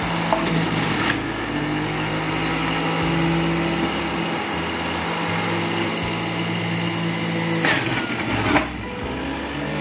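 Black & Decker electric juice extractor's motor running steadily while it juices beetroot, carrot and orange. It gets briefly louder and rougher near the end.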